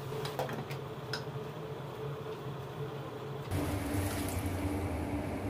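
Wooden spatula clicking against a pan while vegetables are stirred. About three and a half seconds in, this gives way to a louder steady sound of pounded shrimp-head broth being poured through a wire strainer into the pan.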